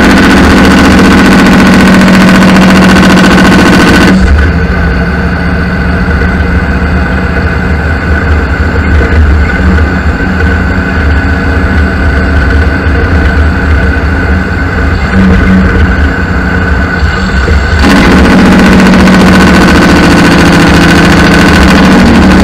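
Loud steady drone of a semi truck's diesel engine and road noise while driving, heard from a camera mounted on the truck. The high hiss drops away abruptly about four seconds in and comes back about four seconds before the end.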